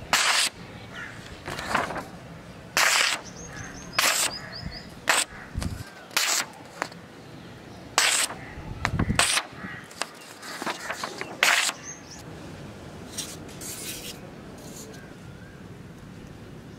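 A sword blade slicing through a hand-held sheet of paper again and again: a short, sharp papery rip about once a second, the edge cutting cleanly, which tests its sharpness. The cuts stop about twelve seconds in.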